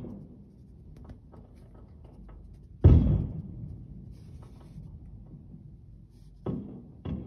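Fireworks bursting, heard from indoors through a window: one loud boom about three seconds in with a rumbling tail, then two fainter bangs close together near the end, with faint crackling between.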